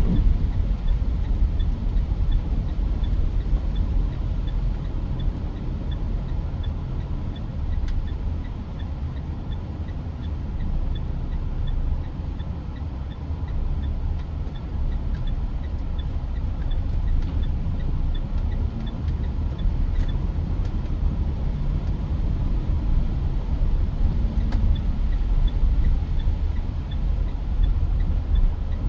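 Inside the cabin of a Mitsubishi Pajero Sport while it is driven: a steady low rumble of engine and road noise, with a faint high tick repeating evenly about one to two times a second.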